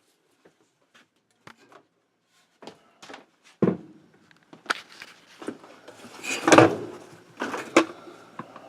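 Plastic and metal knocks and clunks of a washing machine agitator being pried up with a lever: a few faint clicks at first, then louder sharp knocks with some ringing from about halfway in, the loudest about six and a half seconds in.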